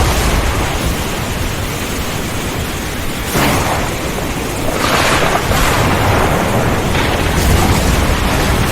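Steady heavy rain with thunder rumbling low underneath, swelling louder about three and a half seconds in and again around five seconds in.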